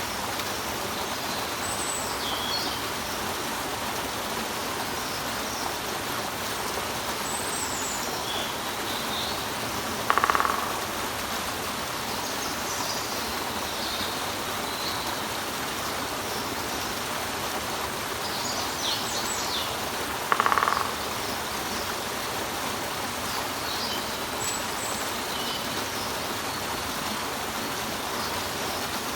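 Water falling over a rock in a steady rush, with small birds chirping high and scattered. Twice, about ten seconds apart, a woodpecker sounds briefly, louder than everything else.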